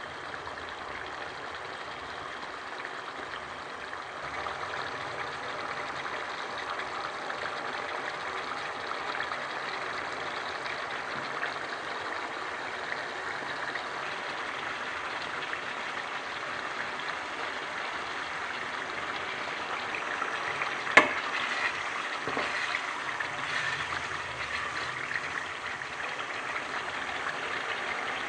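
Chicken karahi sizzling and bubbling in a pan, a steady hiss that grows a little louder a few seconds in. About three-quarters of the way through there is one sharp knock, followed by a few lighter taps.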